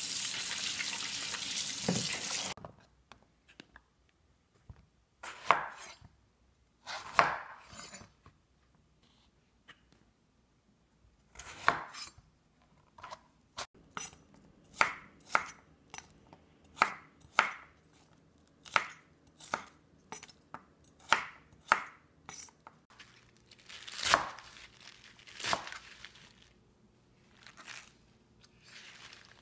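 Tap water running over leafy greens in a steel bowl for the first couple of seconds, then cutting off. After that, a large kitchen knife chops green vegetable stems on a wooden cutting board: separate knocks, a few at first, then a steadier run of one or two a second, some in quick pairs.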